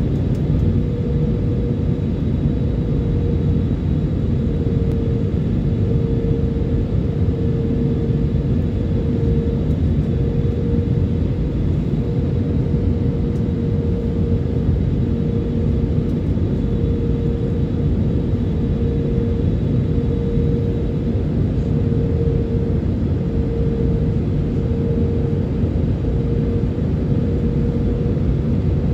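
Airliner cabin noise beside the wing-mounted turbofan engine during the approach descent: a steady rumble of engine and rushing air, with a steady hum that swells and fades about every second and a half.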